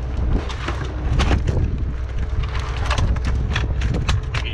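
Irregular clattering knocks from lobsters and plastic bins being handled. Underneath is a steady low rumble of wind on the microphone and the boat's engine.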